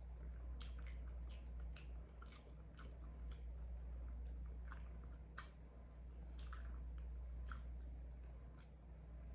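Close-up wet mouth sounds of eating: chewing and sucking sauce off the fingers, with irregular lip smacks and clicks over a low steady hum.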